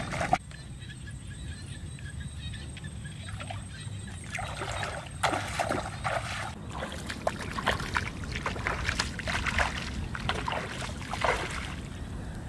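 Water sloshing and splashing in irregular short bursts, busier in the second half, over a steady low rumble.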